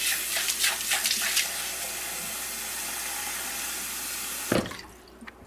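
Kitchen faucet running into a glass measuring cup, a steady rush of water filling it, with a few sharper splashes in the first second or so. About four and a half seconds in, the flow stops with a knock.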